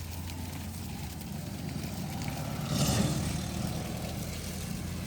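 An engine running steadily at idle as a low hum, with a brief louder rush of noise about three seconds in.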